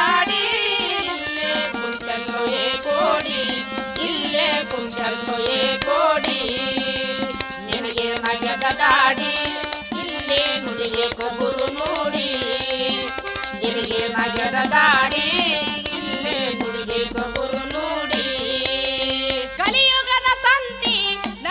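Kannada bhajan folk music: a bending melody line over a steady drum beat.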